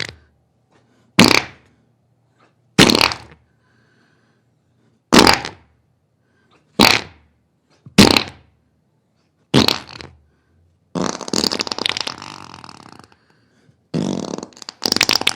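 A series of farts: six short ones a second or two apart, then two longer, drawn-out ones near the end.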